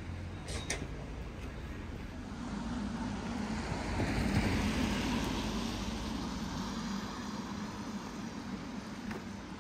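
A vehicle passing by: a broad hum that swells to its loudest about four to five seconds in, then fades away.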